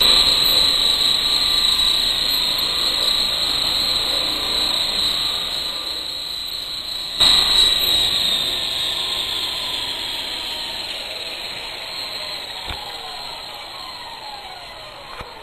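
Blade CP electric RC helicopter's motor and rotor whining high and steady, jumping suddenly louder about seven seconds in, then spooling down with a falling pitch and fading as the landed helicopter's rotor winds down.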